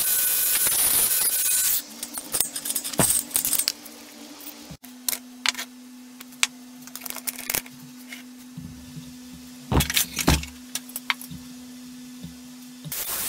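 An angle grinder grinds on the steel pivot of a car jack arm and stops about two seconds in. Then the jack's steel parts clink and rattle as they are handled on a wooden workbench, with scattered sharp clicks, a cluster of louder knocks around ten seconds in, and a steady low hum behind them.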